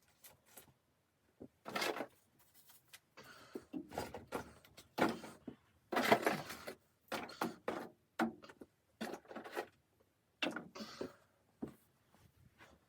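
Irregular handling noises: a series of scrapes, rustles and knocks with short pauses between them, as of objects being moved about in a small room.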